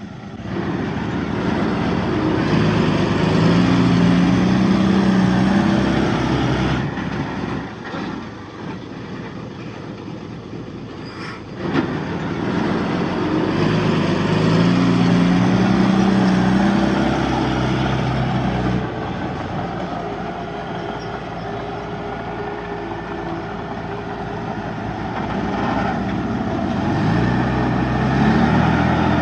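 Diesel engine of a Komatsu D31P crawler bulldozer working under load. It swells loud twice, easing back in between, and builds again near the end. There is a single sharp clack about twelve seconds in.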